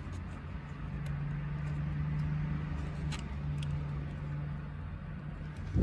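Faint plastic clicks and handling noises from a wiring connector being worked loose behind a car's headlight switch, over a steady low hum, with one sharp knock at the very end.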